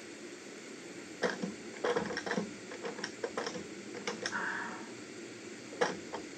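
Irregular clicks and light knocks from a pneumatic nail gun and wooden siding boards being handled.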